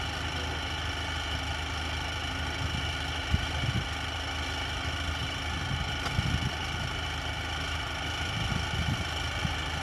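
Rice combine harvester's diesel engine and machinery running steadily, a constant drone with a layered whine over a low rumble and a few soft knocks.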